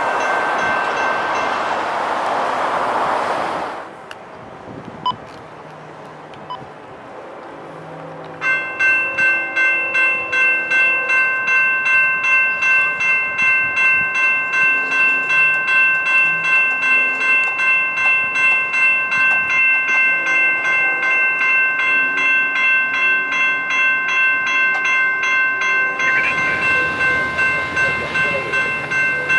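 A passing train rumbles for the first few seconds and cuts off. About eight seconds in, a railroad crossing bell starts ringing steadily at about two strikes a second as the signals activate, and near the end a train's rumble rises under the bell.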